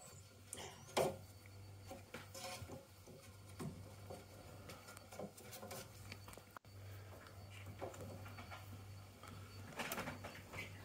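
Faint scattered clicks, knocks and rubbing from handling inside a gas boiler's casing, with the loudest knock about a second in, over a low steady hum.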